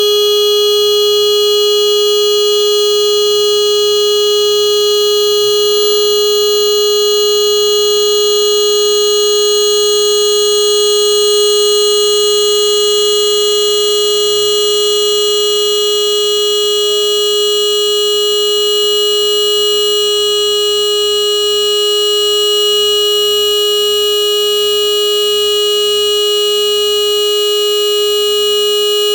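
Motorcycle horn held down in one long continuous blast: a single steady tone that never changes in pitch.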